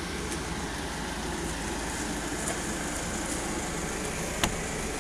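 Toyota van idling, a steady low rumble under an even hiss, with a single sharp click about four and a half seconds in as the door handle is pulled and the latch releases.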